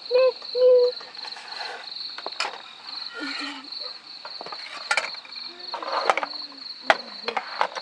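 An insect chirping steadily in a fast, pulsed high trill. Sharp clicks and knocks cut in several times, with a short hum-like voice sound near the start and brief low voice sounds later.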